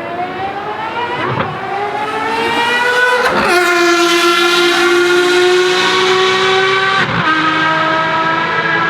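Ferrari FXX Evoluzione's V12 engine at full throttle on track. Its pitch rises and breaks with a sharp crack at each gear change, about a second and a half and three and a half seconds in. It then holds a loud, high, nearly steady note, with another crack and a slightly lower note near the end.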